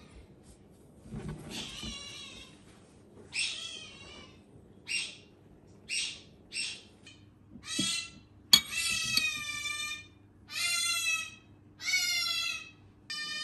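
A pet animal calling over and over in high, pitched cries. The calls are short and spaced out at first, then longer and closer together in the second half. There is one sharp knock about eight and a half seconds in.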